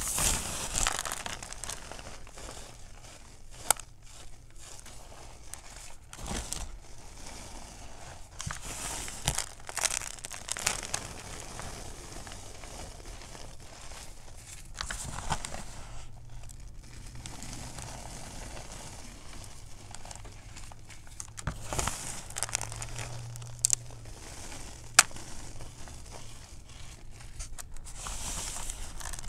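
Fingers pressing into and crumbling gym chalk topped with cornstarch: a soft, uneven crunching and crumbling, with a few sharp cracks, one near the start and two near the end.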